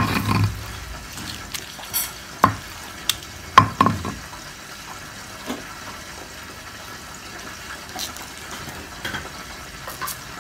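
Cooking utensil knocking and scraping against a dish while stirring, with a few sharp knocks in the first four seconds, then only a faint steady hiss.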